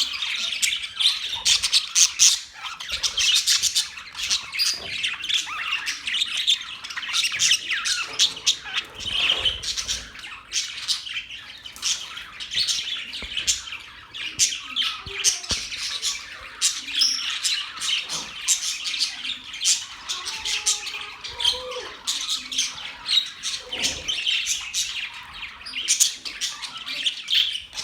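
Budgerigars chirping and chattering continuously, a dense run of short, high calls from several birds at once.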